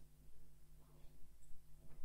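Quiet hall room tone: a steady low electrical hum with a few faint, indistinct voice sounds.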